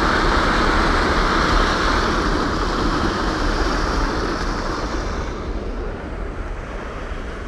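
Steady rush of water flowing through a small dam-like barrier, slowly fading toward the end.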